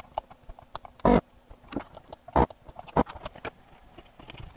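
Electric desoldering gun's vacuum pump firing in short bursts of suction as it clears solder from a small capacitor's leads: one about a second in, then two sharper ones a little over a second later. Light clicks and taps from the tool and the circuit board being handled come in between.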